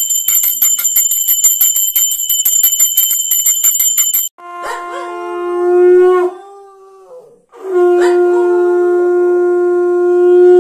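A small brass puja hand bell rung rapidly and continuously for about four seconds. It stops, and a conch shell (shankh) is blown in two long blasts on one low, steady note: the first swells louder for about two seconds and wavers as it ends, and the second, after a short breath, is held for about three seconds.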